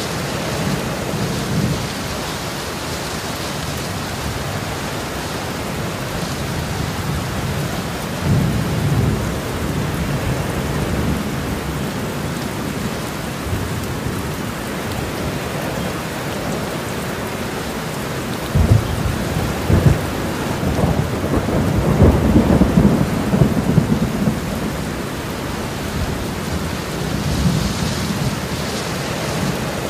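Steady rain falling, with low rumbles of thunder: a short one about eight seconds in and a longer, louder one from about eighteen to twenty-five seconds.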